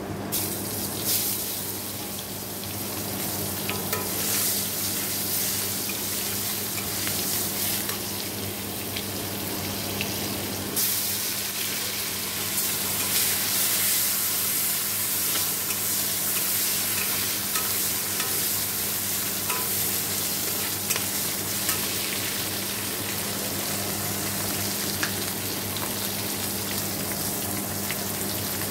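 Hot oil sizzling in a kadai as garlic and nigella seeds fry, growing louder about eleven seconds in as chopped potato, tomato, onion and chilli go into the oil. A flat metal spatula scrapes and clicks against the pan as it stirs.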